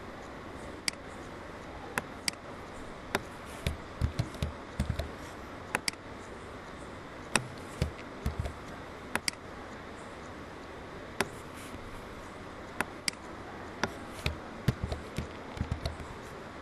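Computer mouse buttons clicking irregularly, several clicks in quick runs and a few with a dull thump, over a steady background hiss.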